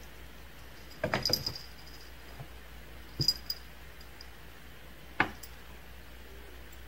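A cat pawing at a mirror: a few soft taps and knocks of its paws against the glass, about three times, with a brief light jingle of its collar.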